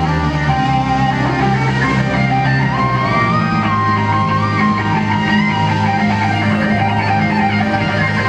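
Live electric guitar solo on a sunburst Les Paul-style guitar: long held notes bent up in pitch and shaken with vibrato, over a steady bass-heavy band backing.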